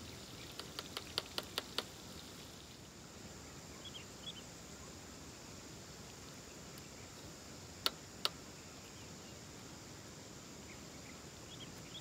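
Quiet outdoor ambience with faint high bird chirps. A quick run of light, sharp clicks sounds near the start and two more sharp clicks come about eight seconds in.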